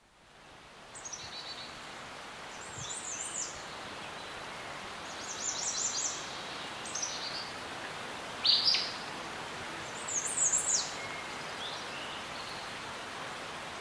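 Outdoor ambience: a steady background hiss fading in at the start, with small birds chirping in short runs of quick high notes every second or two.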